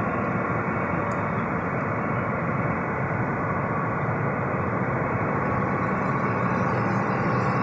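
John Deere CP690 cotton picker running as it works through the field: a steady, heavy drone of its diesel engine and picking machinery that holds unchanged throughout.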